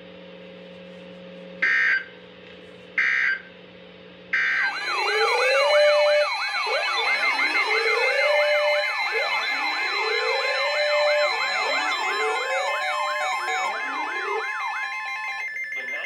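Three short screeching data bursts of the EAS header come in over a NOAA weather radio broadcast for a tornado warning. Then a dozen weather radios all alarm at once: fast warbling siren-like sweeps, rising whoops about every second and a half, and steady beeping tones, all overlapping. The alarms stop near the end.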